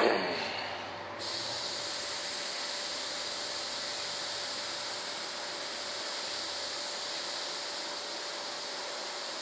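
Small air-fed paint spray gun hissing steadily as it sprays the tail cone of a model jet, starting about a second in, after a short knock at the start.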